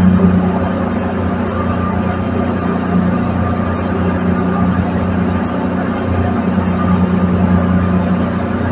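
Fishing boat's engine running steadily underway, a constant low drone.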